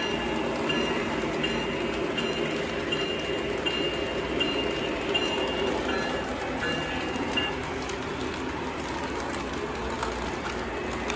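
O gauge model freight train rolling on three-rail track: a steady rumble of wheels on the rails. A faint high ring repeats about every three-quarters of a second through roughly the first seven seconds.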